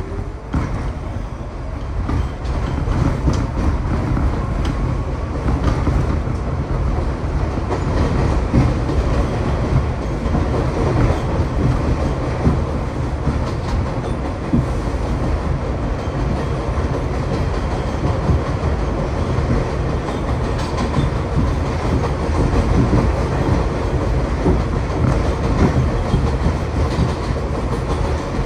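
NYC Subway 3 train heard from inside a car, gathering speed out of a station on elevated track: a steady wheel-on-rail rumble with continual clickety-clack over the rail joints. It grows louder over the first couple of seconds, then holds steady.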